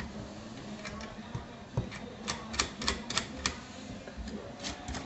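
Small metal clicks and clinks of lock nuts, washers and bolts being handled by hand on a stacked-plate HHO dry cell, with a quick run of clicks about two to three and a half seconds in and a couple more near the end.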